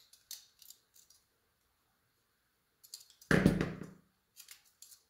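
Needle-nose pliers working a thin aluminum wire hook, a few small metal clicks, then a louder knock about three seconds in as the pliers are set down on the cutting mat, followed by light handling clicks.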